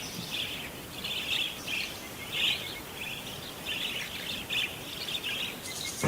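Small birds chirping and calling in short, repeated bursts of high twittering.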